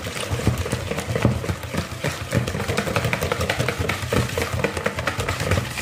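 Wire hand whisk beating butter, icing sugar and egg into a soft batter in a bowl, in fast, even strokes with the wires clicking and slapping against the bowl several times a second.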